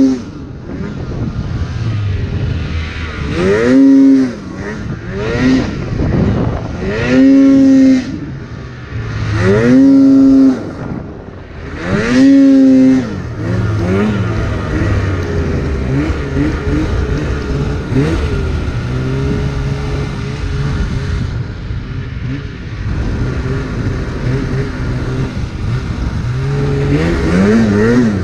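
A 2016 Polaris RMK 800 snowmobile's two-stroke twin engine revving hard in about five bursts, each climbing quickly to a high steady pitch and dropping back. It then runs at lower, uneven revs before climbing to high revs again near the end.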